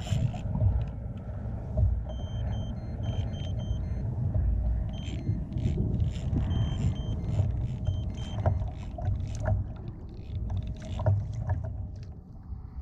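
Wind rumbling on the microphone and water washing against a fishing kayak's hull, with scattered knocks and clicks. Short, high beeping tones repeat several times in the middle.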